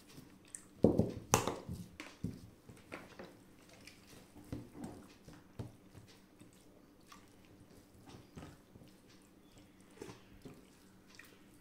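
Eating by hand: fingers squishing rice and dal on a steel plate, and chewing. A few sharp knocks about a second in.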